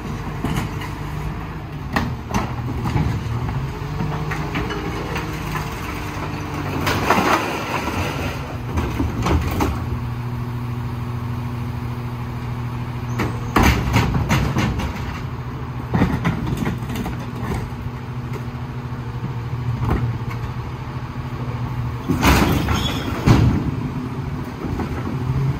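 Lodal EVO garbage truck's diesel engine running steadily, its note shifting up about ten seconds in. Several loud clattering knocks and bangs break over it, the biggest about seven, fourteen and twenty-three seconds in.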